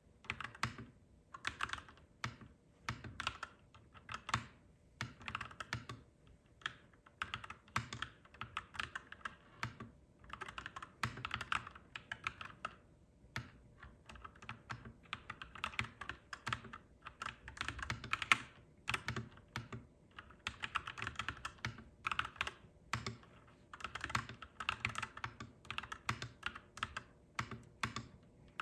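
Clacky mechanical keyboard being typed on in quick bursts of keystrokes with short pauses between them.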